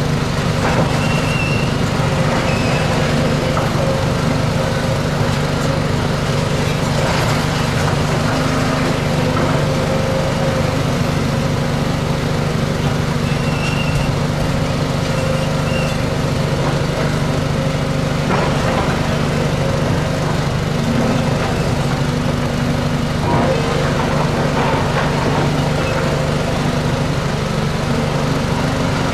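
Volvo tracked demolition excavator's diesel engine running steadily under work, with a few short knocks of rubble or steel as it digs into the debris.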